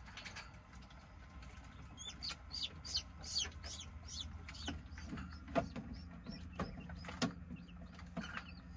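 Newly hatched chicks peeping: short high chirps about two a second, starting about two seconds in, with a few sharp clicks in the second half.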